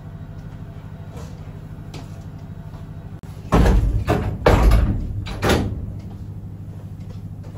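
Heavy metal door of a shielded lab chamber being shut and latched with its lever handle: a run of loud clunks and bangs about three and a half to five and a half seconds in, over a steady low hum.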